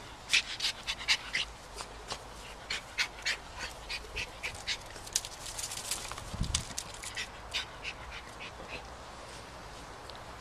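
Small dog panting in short, quick breaths, about two to three a second, with no voice.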